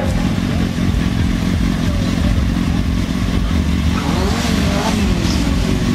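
Stunt motorcycle engine running hard during wheelie riding, revving up and down with its pitch rising and falling about four seconds in.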